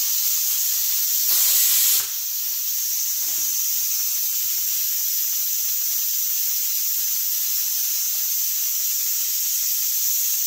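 Steam hissing steadily from the pressure valve of an aluminium Afghan kazan pressure cooker, the sign that it has come up to pressure. The hiss is louder for about a second near the start, with a few faint knocks under it in the first few seconds.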